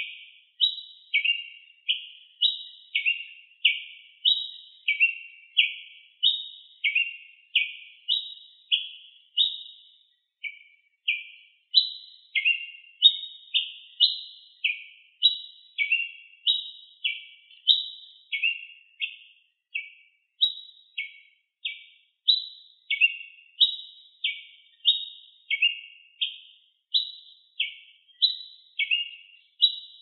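Tiê-preto (white-lined tanager) singing: a steady run of short, sharp whistled notes, alternating higher and lower, about two a second, with a brief pause about ten seconds in.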